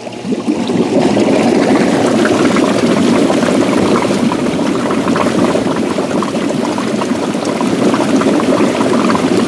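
Spa air blower switching on about a third of a second in, driving air through the tub water in a loud, steady churning rush of bubbles. The blower has just been replaced, and this shows it working again.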